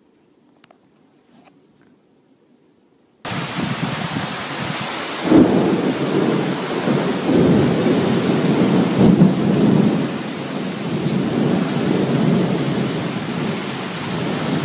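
Near silence for about three seconds, then heavy rain and rolling thunder from a thunderstorm start abruptly, with louder rumbles of thunder about five and nine seconds in.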